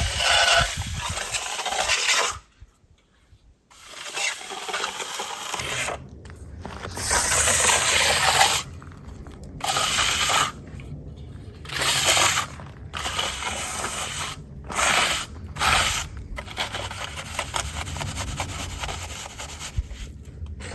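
Hand trowel, a square-edged tile trowel, scraping and smoothing wet concrete along the top of a foundation wall in repeated strokes with short pauses. A steady low rumble sits underneath from about five seconds in.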